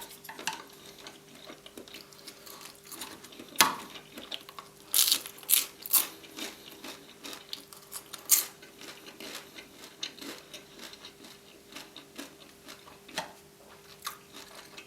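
Close-miked eating sounds: chewing fried noodles and seafood, with sharp clicks and taps of utensils on the plate, scattered irregularly and loudest a little under 4 s in and from about 5 to 8.5 s in.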